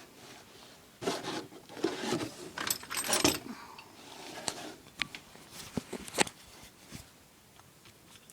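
Scraping and rattling from objects being handled, dense for about two and a half seconds, then several sharp clicks.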